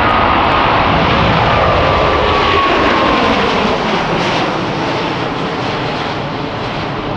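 Airbus A350 XWB's twin Rolls-Royce Trent XWB turbofans at takeoff power as the airliner climbs out, a loud jet roar with a faint whine sliding slowly down in pitch, easing off a little toward the end.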